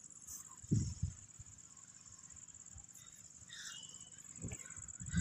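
Insects chirring steadily in a high, thin, unbroken trill, with a soft low thump about a second in.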